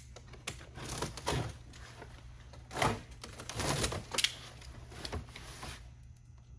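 Cardboard box and packaging being handled and opened: a series of irregular scrapes, rustles and knocks that stop about six seconds in.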